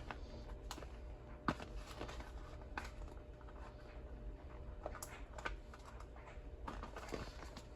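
Faint, irregular clicks and taps from small cardboard boxes of shotgun slugs being handled, the loudest about one and a half seconds in.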